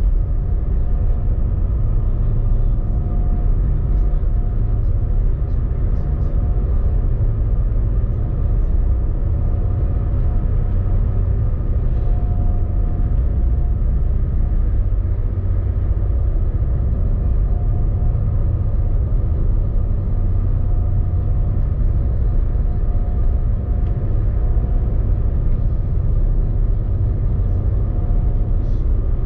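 A running engine makes a steady low rumble, with a constant hum of several held tones over it.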